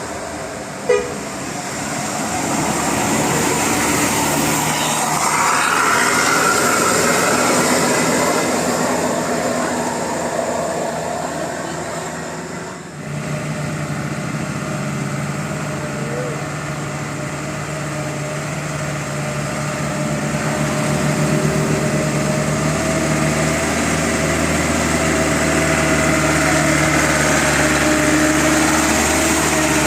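A bus engine running steadily, with a short knock about a second in and a brief break about halfway through.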